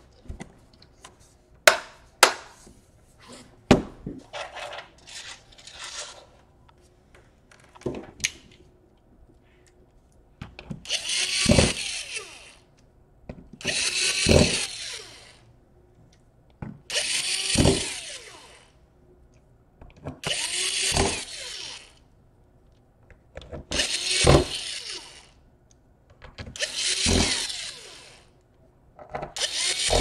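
Cordless drill-driver driving screws into a laptop's metal bottom cover in seven short runs about three seconds apart, the motor's pitch rising and falling with each screw. Before the drilling starts, a few sharp clicks and snaps as the cover's edges are pressed into place.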